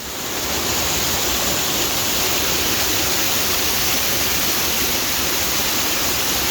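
Steady rush of water from the Itata River. It fades in over the first second, then holds even.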